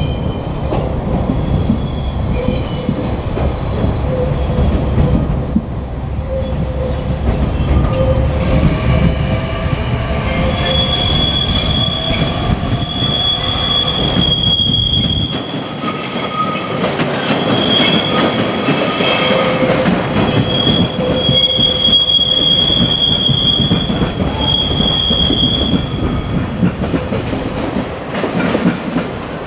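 JR Kyushu 817 series electric train rolling past, its wheels squealing on the rails in long, high-pitched squeals that come and go over a steady rumble of wheels on track.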